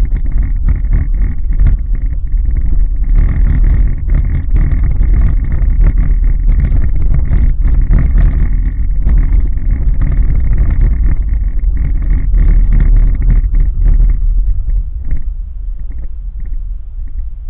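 A car's low road and engine rumble, picked up inside the cabin by a windscreen-mounted dashcam, with frequent small knocks and rattles as it drives along a narrow concrete road. The rumble eases a little about fifteen seconds in.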